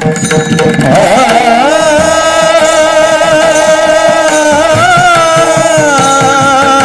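Kirtan singing: a voice holds a long, ornamented note that bends at the start and steps down near the end, over fast hand-drum strokes and instrumental accompaniment.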